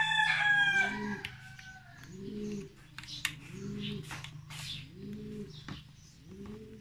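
A rooster crowing once, the loudest sound, a long call that trails off about two seconds in. Under it a lower bird call repeats about once a second.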